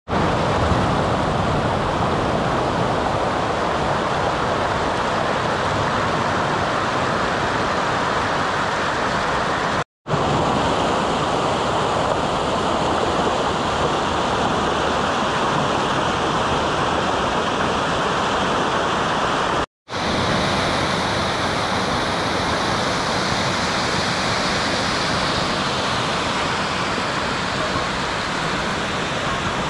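Rain-swollen, muddy stream in flood rushing over rocks: a loud, steady rush of water. The sound drops out for a moment twice.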